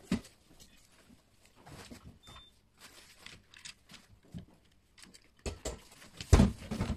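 Plastic lock parts and a circuit board being handled and fitted into a gun safe's door panel: scattered light clicks and taps, with a run of louder knocks and bumps near the end.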